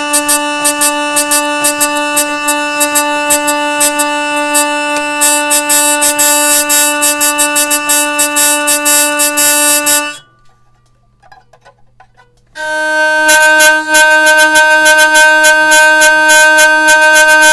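Ancestore Viking hurdy-gurdy sounding one long, steady note from its wheel-bowed strings, with a rapid crackle of clicks riding over it. The note breaks off about ten seconds in. After a short pause of about two and a half seconds, another sustained note at a slightly different pitch starts up, and the crackle soon returns.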